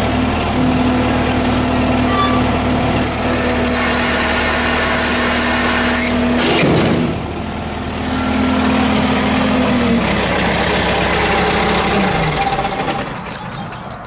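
Tractor engine running steadily, with a loud hiss for about three seconds partway through. Near the end the engine pitch falls as it slows and the sound dies down.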